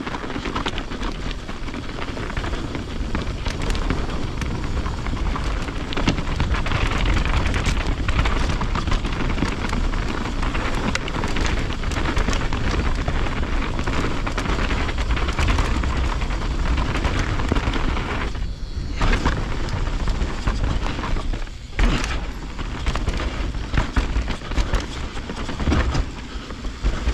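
Wind rushing over a camera microphone on a mountain bike ride, with the tyres rolling over dirt and rock and the bike knocking and rattling. The noise drops briefly twice, about 19 and 21 seconds in.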